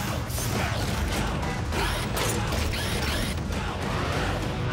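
Animated-cartoon mechanical sound effects: rapid clicking, ratcheting and whirring of gadgets and vehicles, layered over music.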